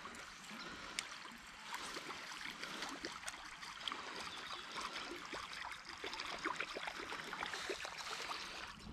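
River water trickling and gurgling past a kayak's hull, with many small scattered ticks and splashes.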